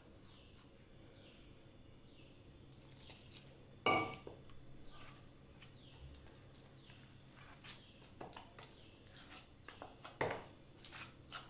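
Metal spoon stirring and scraping thick gram-flour batter in a stainless-steel bowl: faint scrapes and light taps, with one sharp clink of the spoon against the bowl about four seconds in and busier scraping near the end.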